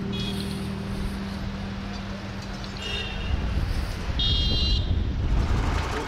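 Town street traffic noise, with two short high-pitched toots about three and four and a half seconds in.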